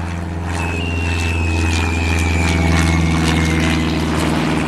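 Propeller airplane engine droning steadily, with a high whine that slides slowly down in pitch through the middle, as of a plane flying past.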